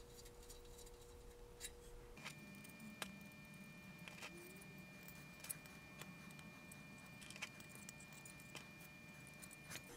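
Very faint, scattered small clicks and taps over near silence: M2.5 screws and standoffs being handled and tightened by hand.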